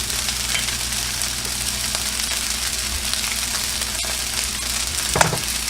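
Chicken fried rice sizzling steadily in a hot pan.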